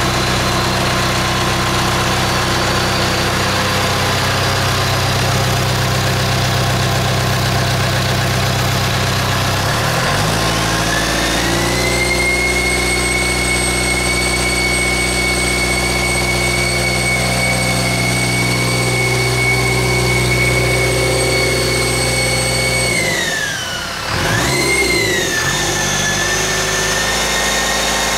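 Turbocharged Perkins diesel engine running on a test stand during its run-in. It idles evenly, is throttled up about ten seconds in to a steady higher speed with a high whine that climbs with it and holds, then is brought back down near the end, with a brief blip before it settles.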